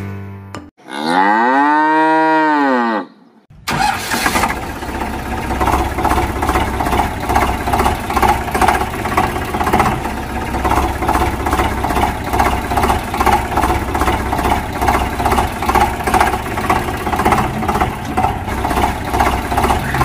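A cow moos once, a long call that rises and then falls in pitch. Then a tractor engine runs with a steady, even rhythm for the rest.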